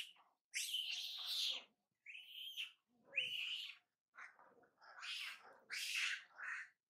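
Macaques screaming in a string of short, shrill, rasping calls, about six or seven in a row with brief gaps between them. These are distress screams from a young macaque being chased and harassed by others in its group.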